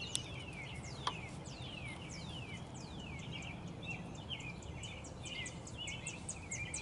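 Wild birds singing: a series of falling high whistled notes, then a fast run of short high chirps near the end, over a steady low background hum. A faint click about a second in.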